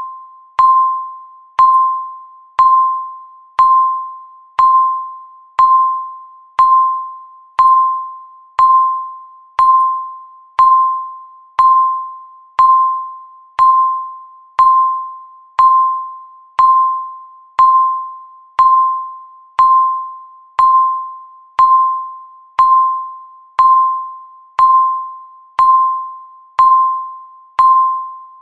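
Countdown timer beeping once a second: each beep is a single clear tone that starts sharply and fades away before the next. Each beep marks one second left on the count.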